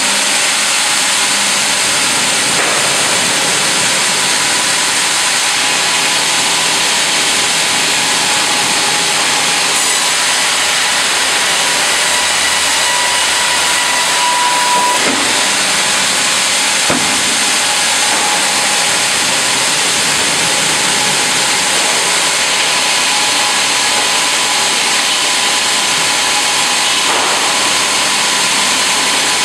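FİMAKSAN hydraulic vertical band saw and automatic log carriage running while sawing timber: a loud, steady, even noise with a faint whine.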